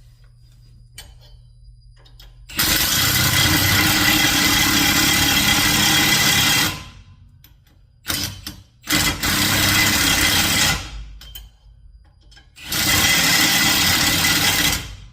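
Power impact wrench tightening wheel bolts: a long burst of about four seconds, two short blips, then two more bursts of about two seconds each, stopping and starting as each bolt is run down tight.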